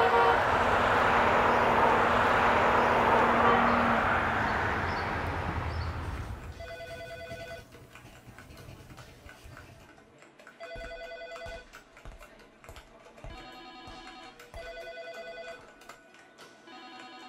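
Steady rushing noise for the first six seconds, then a telephone ringing with a rapid trilling electronic ring, four rings about three to four seconds apart.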